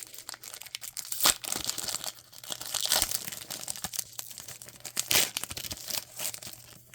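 A trading-card pack wrapper being torn open and crinkled, in quick crackling rips with sharper tears at about one second in and again near five seconds.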